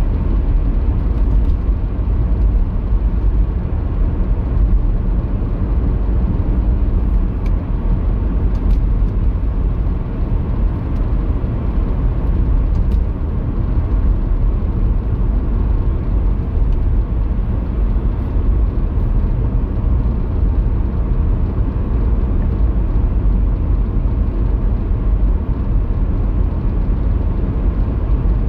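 Steady road and engine rumble of a car being driven, heard inside the cabin.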